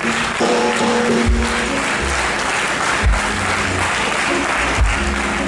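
Congregation applauding over background music with held, sustained notes and a low bass line.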